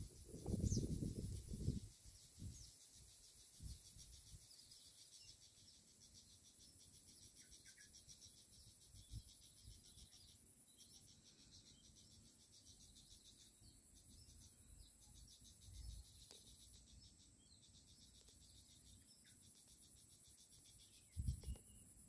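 Faint, steady, high-pitched insect chorus over a rice paddy, with a low rumble on the microphone in the first two seconds.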